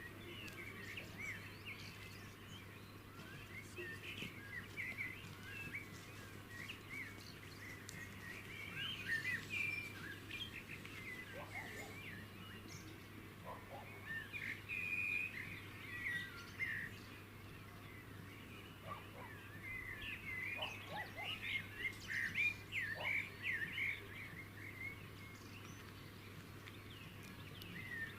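Small songbirds chirping and trilling, many quick overlapping notes, some calls lower and sparser, over a faint steady background hum.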